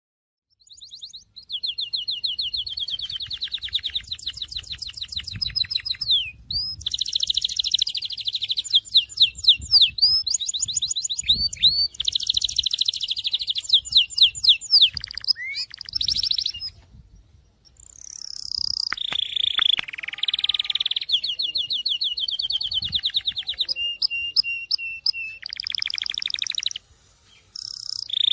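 Syrian canary singing: a long song of fast trills and runs of rapidly repeated notes, changing phrase every second or two, with a few falling glides. It starts about a second in and pauses briefly twice.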